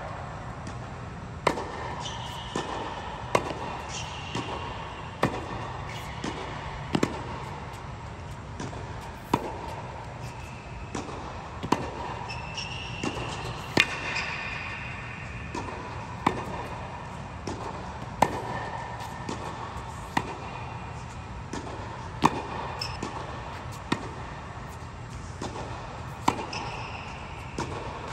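Tennis ball struck by racket strings in a steady baseline rally on an indoor hard court. A sharp hit comes about every two seconds, with softer knocks of the ball bouncing between, over a steady low hum.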